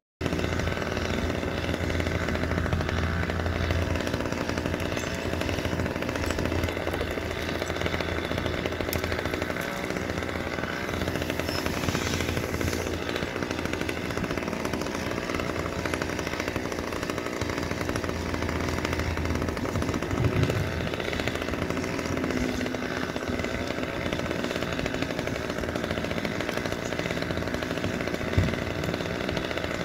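A chainsaw running steadily at an even speed, with no clear revving, and a sharp knock near the end.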